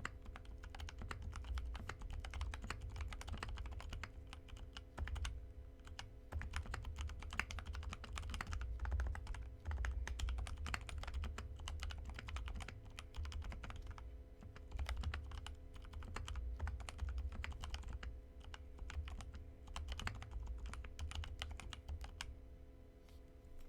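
Continuous typing on a Tofu65 custom mechanical keyboard with lubed and filmed TTC Bluish White linear switches and PBT keycaps: a dense, irregular run of keystrokes that thins to a few last strokes near the end. A faint steady hum underneath.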